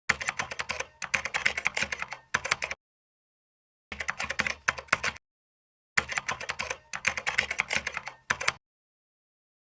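Rapid key clicks like typing on a keyboard, in three runs separated by dead silence.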